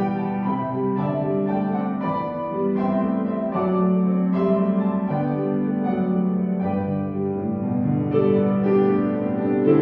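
Slow instrumental keyboard music: held chords that change every second or so, with no singing.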